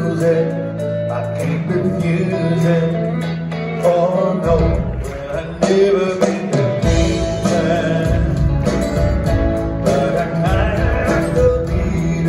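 Live rock band playing a country-tinged song, heard from the audience in a theatre: acoustic and electric guitars, bass, keyboards and drums, with a voice singing. The low end of bass and drums fills in about four and a half seconds in and runs full from about seven seconds in.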